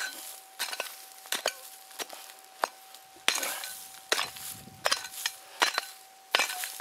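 Prospecting pick chopping into hard, dry dirt, about ten strikes at a steady pace, with scrapes of soil between them. A faint steady tone runs underneath.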